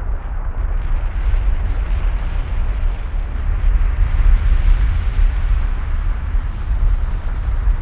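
Continuous deep roar of Kilauea's lava fountain erupting, swelling slightly around the middle.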